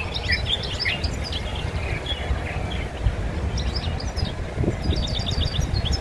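Small caged songbirds chirping and twittering in short high phrases, with a quick run of sharp repeated notes near the end, over a steady low rumble.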